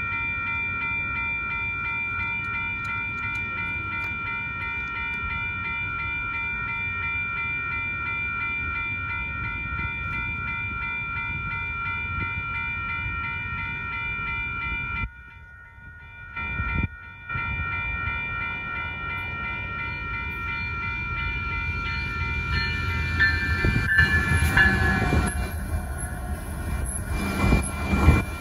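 A railroad crossing's electronic warning bell rings steadily and cuts out about halfway through. Near the end an Amtrak train with Siemens ALC-42 diesel-electric locomotives approaches, sounds its horn and runs past through the crossing, with loud engine and wheel-on-rail noise.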